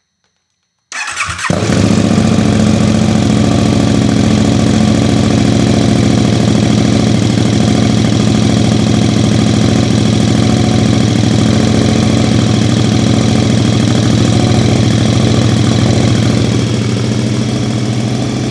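KTM 1290 Super Duke R Evo's V-twin starting through a titanium MIVV X-M5 slip-on exhaust with its baffle fitted. It catches about a second in after a brief crank, then idles steadily, a little quieter near the end.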